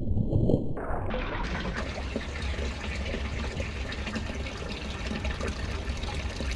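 Water at the surface of a fish tank trickling and lapping in a steady hiss, the disturbed surface settling after a silver arowana's splash; for the first second or so the sound is a deep, muffled rumble.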